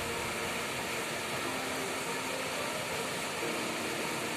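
Steady rushing of white water in a river rapid.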